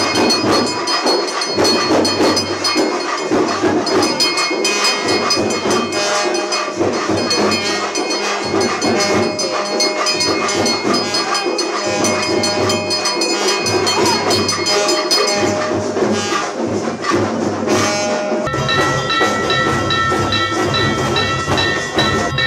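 Brass puja hand bell rung rapidly and continuously, its high ringing tones mixed with a fast clatter, over music with a low beat that recurs about every second and a half. The sound changes about 18 seconds in, with different steady tones taking over.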